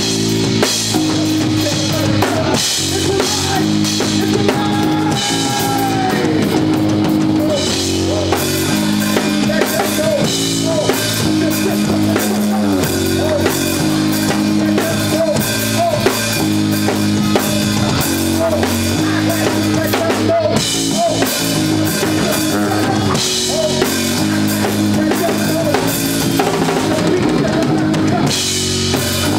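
Live rock band playing: a drum kit with busy cymbals, snare and bass drum over electric guitars, continuous and loud.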